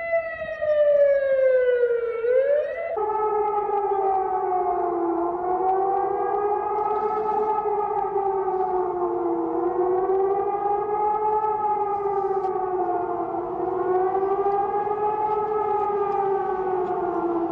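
Civil defence siren: a steady tone that falls in pitch over the first two seconds, then a wailing tone rising and falling slowly, about once every four seconds.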